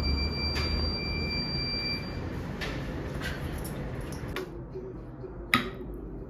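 A steady electronic buzzer tone lasting about two seconds, over a low rumble, then a few light clicks and taps, the sharpest about five and a half seconds in.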